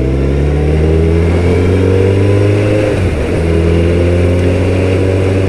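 Suzuki Hayabusa GSX1300R's inline-four engine pulling under acceleration, its pitch climbing steadily, with a brief break about three seconds in as it shifts up a gear, then climbing again. Wind rushes over the bike-mounted microphone.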